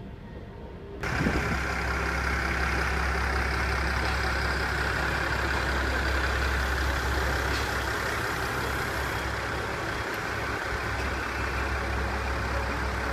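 Diesel engines of an Aizu Railway AT-400 series railcar train running steadily as the train moves slowly past, a low, even hum. It starts abruptly about a second in, after a quieter stretch of traffic sound.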